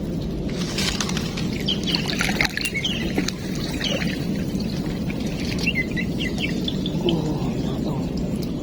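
Short high bird chirps in scattered clusters over a steady low rushing noise.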